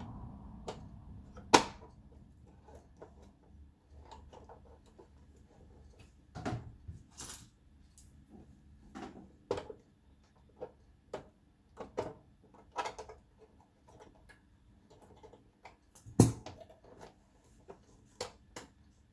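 Irregular clicks, taps and knocks of plastic and metal parts and tools being handled while a video projector is taken apart, with two sharper knocks about a second and a half in and near the end.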